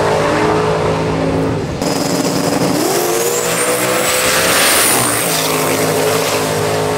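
Drag racing cars accelerating hard down the strip at full throttle, engines running at a steady high pitch. About two seconds in, the engine note climbs in pitch with a high whine rising and then falling above it, before settling back into a steady run.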